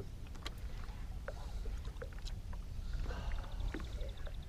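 A fishing boat sitting on a lake: a steady low rumble with scattered small clicks and knocks, and a fast, even ticking that starts about three seconds in.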